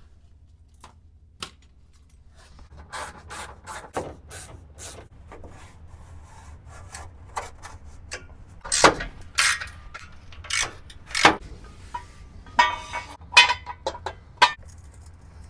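Ratchet wrench with a 13 mm socket clicking in short rasping strokes as it loosens the bolts of an exhaust sleeve clamp under a car. The strokes grow louder and further apart from about nine seconds in.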